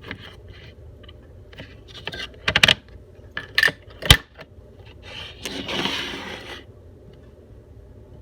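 Handling of slime containers: a few sharp clicks and knocks, the loudest about four seconds in, then a rustling scrape lasting about a second and a half.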